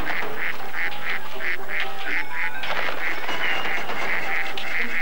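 Mallard ducks quacking in a fast, even series of about three calls a second, with water splashing from a little past halfway.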